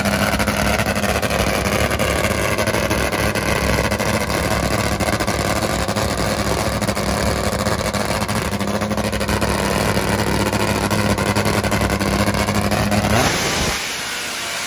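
Drag-racing motorcycle engines running at a steady, unchanging pitch for about thirteen seconds. Near the end the engine sound cuts off abruptly and gives way to a quieter rushing noise.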